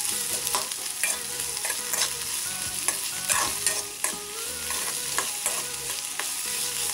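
Sliced onions sizzling in hot oil in a metal kadai, with a slotted metal spoon scraping and knocking against the pan many times as they are stirred.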